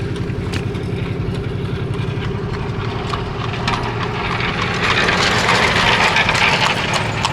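Steady drone of a Ram 3500 pickup's Cummins straight-six diesel engine pulling a travel trailer slowly through snow. A hissing rush swells over it about five seconds in.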